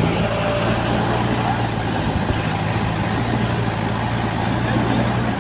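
Heavy earthmoving machine's diesel engine running steadily at an even speed, with no revving.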